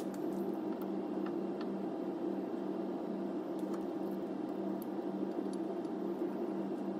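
Steady low machine hum with a rushing haze over it, and a few faint light clicks of metal as the brake caliper and its slider pins are handled.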